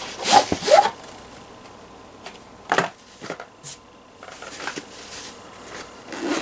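Packaging of a GoPro camera being handled and opened by hand. A loud crinkling rustle comes in the first second, followed by quieter scattered rustles and clicks, with a sharp one near three seconds in.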